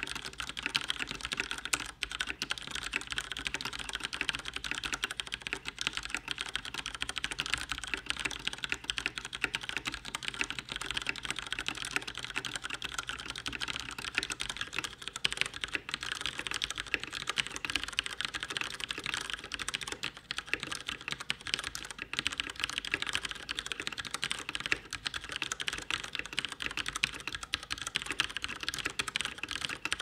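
Continuous touch typing on a Ducky Zero DK2108 mechanical keyboard with Cherry MX Red linear switches: a dense, unbroken stream of keystrokes.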